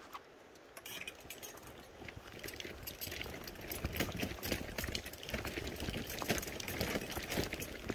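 Small stream trickling and splashing over rocks, a dense irregular patter that grows louder after the first second or two.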